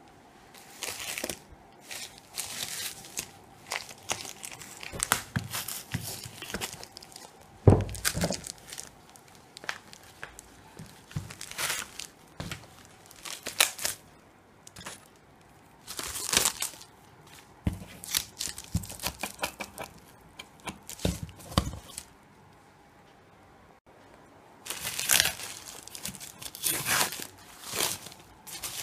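Plastic mailer bag and plastic wrap crinkling and tearing as they are pulled off a cardboard box, in irregular bursts, with a sharp thump about eight seconds in and a short lull near the end before the crinkling resumes.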